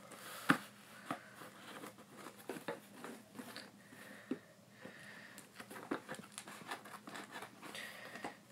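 Scissors snipping through a cardboard box, a run of irregular short cuts and clicks, the sharpest about half a second in.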